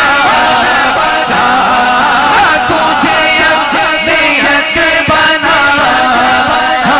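A man singing an Urdu devotional hymn in naat-recitation style into a microphone, holding long notes that waver and bend in ornamented runs.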